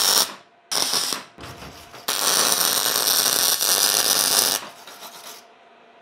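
MIG welder arc welding steel pipe in bursts: one ending just after the start, a short one about a second in, then a longer run of about two and a half seconds.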